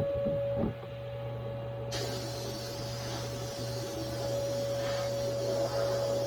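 Steady mechanical or electrical hum holding one constant tone, with a hiss that comes in about two seconds in.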